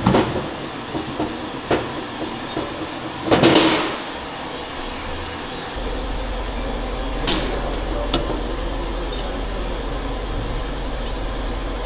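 Metal tools and engine parts knocking and clanking on a garage bench, with a short, louder noisy rush a few seconds in. A steady low hum comes in about halfway through.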